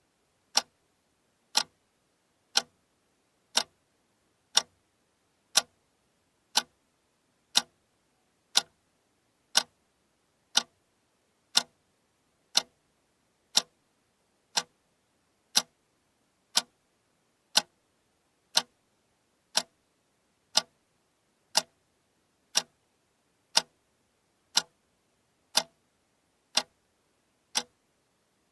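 Alarm clock ticking steadily, one sharp tick each second.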